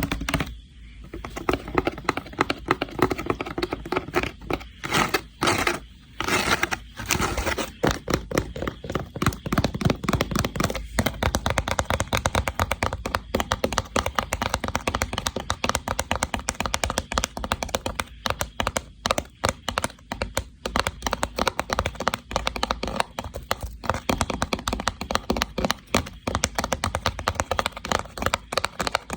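Fast, dense tapping and clicking on a woven rattan box, many strikes a second, with a noisier, scratchier stretch a few seconds in.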